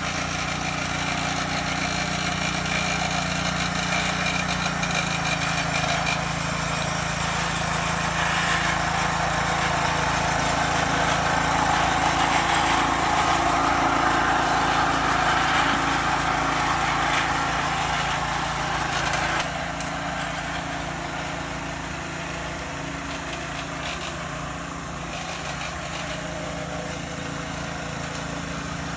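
Kawasaki TB70 brush cutter engine running steadily on a test run; about two-thirds of the way through it suddenly drops to a quieter, lower running level.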